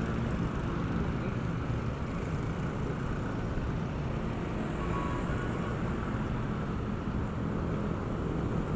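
Motorcycle running at road speed, heard through an action camera mounted on the bike: a steady low engine and road noise mixed with wind rushing over the microphone.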